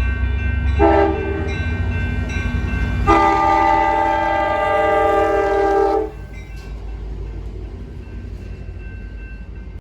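Locomotive air horn sounding a short blast about a second in, then a long blast of about three seconds, several tones sounding together as a chord, over a steady low rumble.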